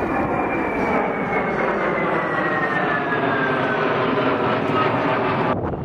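Jet engines of a formation of military jets passing overhead: a steady roar with a whine that falls slowly in pitch as they go by. The sound breaks off abruptly near the end.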